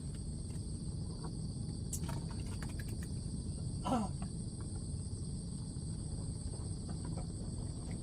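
Insects droning steadily in two high-pitched bands over a low outdoor rumble, with a few light clicks about two seconds in and one short falling call about four seconds in.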